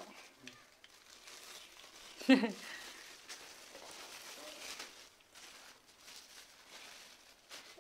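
Faint handling noise of a ring light being fitted onto a light stand: light rustling and small clicks of plastic and metal parts. A short burst of voice cuts in once, about two seconds in.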